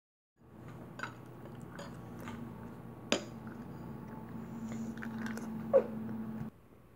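Chewing and crunching on a mouthful of breakfast cereal, with a metal spoon clicking against the bowl several times, sharpest about three seconds in, and a louder knock near six seconds in. A steady low hum runs underneath and stops shortly before the end.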